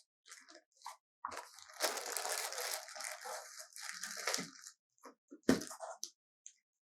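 Packaging being handled: crackly rustling and crinkling for a few seconds, with scattered clicks and a sharp knock about five and a half seconds in.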